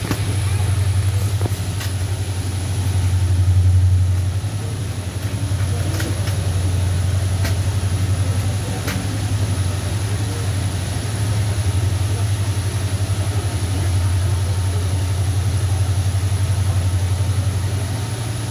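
Passenger train running slowly, heard from an open carriage door: a steady low rumbling drone with a few sharp clicks.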